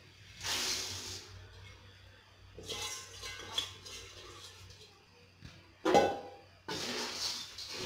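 Dry puffed rice poured from a bowl into a metal kadai, a rustling hiss in a few bursts, with a louder knock about six seconds in.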